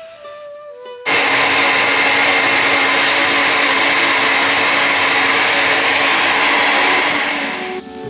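Countertop blender running at a steady speed, blending a thick oat and spinach pancake batter; it starts abruptly about a second in and winds down near the end.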